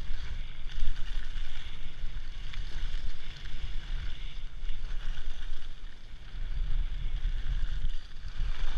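Wind buffeting a moving action camera's microphone as a low rumble, over the steady hiss and scrape of skis sliding across packed, chopped-up snow.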